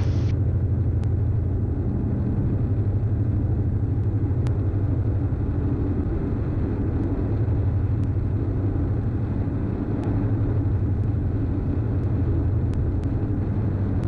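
Steady cabin drone of a Diamond DA42's twin jet-fuel piston engines and propellers at about 45 % load on final approach: a deep, even hum.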